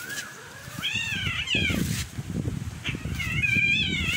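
A cat meowing twice, two long wavering, high-pitched meows, over low rustling and bumping.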